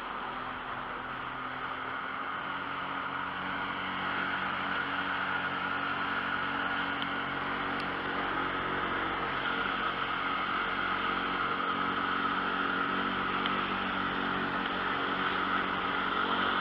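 Small boat's outboard motor running steadily under way, with the rush of water and wind; it grows a little louder over the first few seconds, then holds steady.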